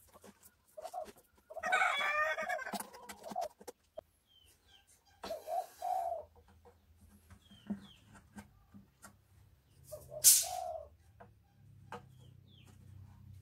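Chickens calling: a rooster's drawn-out crow about two seconds in, then shorter clucks and a sharp, loud squawk about ten seconds in. Light clicks and taps of hands working on a wooden guitar neck run underneath.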